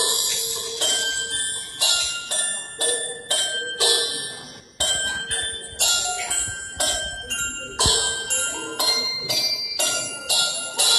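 School bell ringing: a run of struck bell tones about two a second, each ringing on into the next, at several different pitches like a chime tune, with a short break about five seconds in.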